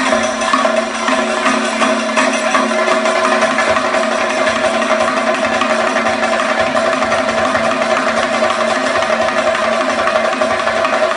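Kathakali percussion accompaniment: drums beaten in a fast, continuous rhythm, with a steady ringing tone held underneath throughout.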